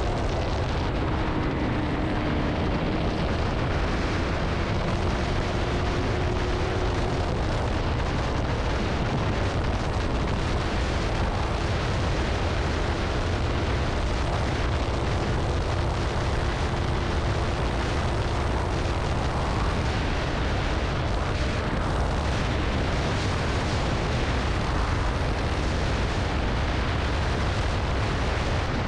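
Wind rumbling over a helmet-mounted microphone at road speed, with a KTM Duke 200's single-cylinder engine running steadily underneath while cruising. The level stays even throughout.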